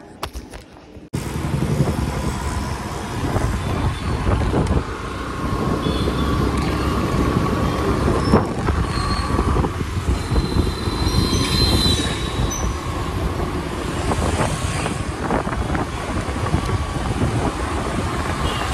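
Steady road noise from riding a motor scooter in traffic, with a heavy low wind rumble. It starts abruptly about a second in, and a few brief high squeals come near the middle.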